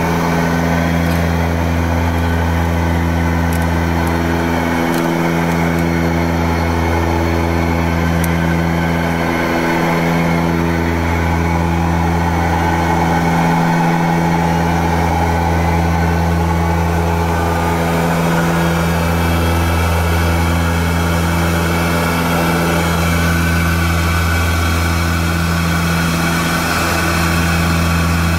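Antonov An-24's twin turboprop engines and propellers droning steadily in flight, a deep hum with a slow throb about every four to five seconds.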